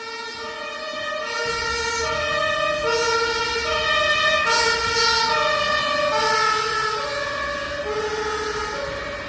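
German ambulance two-tone siren (Martinshorn) sounding its alternating high-low "tatütata", switching pitch about every 0.7 seconds, over a low engine and road rumble. It grows louder to a peak midway, then fades.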